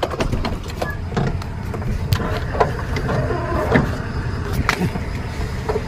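A heavy vehicle's engine running with a low, steady rumble, with scattered knocks and clicks close by.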